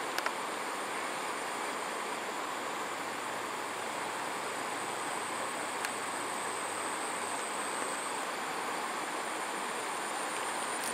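Steady rush of river water flowing over rocks, with a thin, high steady tone above it and a couple of faint clicks.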